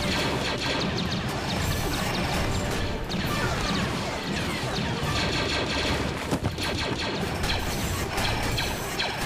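Film battle soundtrack: rapid blaster fire, many quick shots, some falling in pitch, with crashes and impacts, over battle music.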